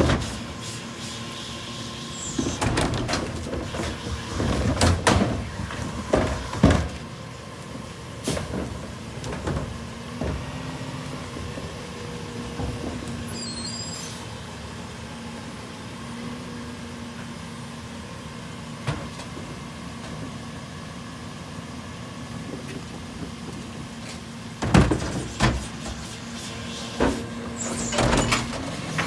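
Rear-loader garbage truck running, with sharp clanks and bangs of carts knocking against the cart tipper and hopper during the first several seconds and again loudly near the end. Between them the truck's engine hums steadily.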